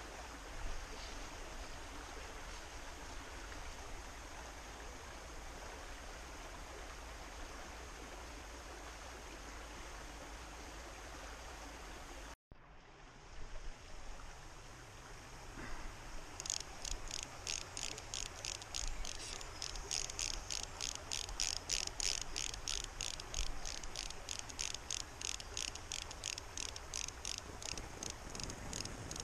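Small stream flowing steadily. After a brief break near the middle, a rapid run of high-pitched ticks starts and carries on to the end, several a second and louder than the water.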